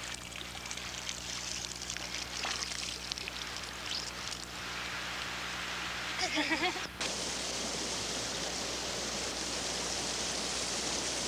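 Steady rushing of running water that cuts in abruptly about seven seconds in. Before it comes a quieter stretch with a low steady hum and a brief faint voice.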